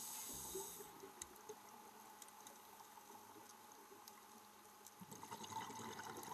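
Near silence: faint underwater hiss with a few tiny clicks.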